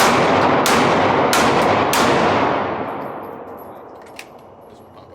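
A Glock 43X 9mm pistol fired in a quick string of shots over about two seconds. Each shot leaves a long echoing tail that fades out about a second after the last one.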